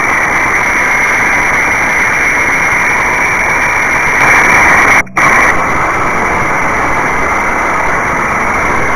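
Spitfire Mk.IX's Rolls-Royce Merlin V12 engine running in flight, heard from on board as loud, steady engine and rushing-air noise. The sound cuts out for a moment about five seconds in and comes back slightly duller.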